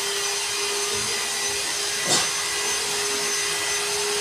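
A small electric motor, such as a power tool, running steadily with a constant hum and hiss.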